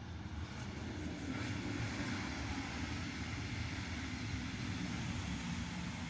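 Steady low rumble of a passing vehicle, growing louder with an added hiss about a second in and easing off near the end.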